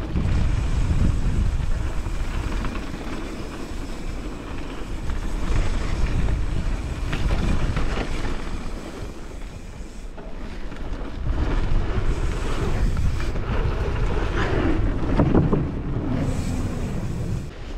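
Wind buffeting the camera microphone as a mountain bike rolls fast down a gravel flow trail, with the tyres and bike rattling over rough ground, loudest about halfway through and again near the end.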